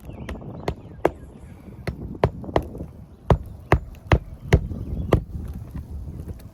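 Hammer blows on an asphalt shingle roof: about a dozen sharp knocks at an uneven pace, the heaviest coming in a quick run through the middle, amid scraping and handling noise.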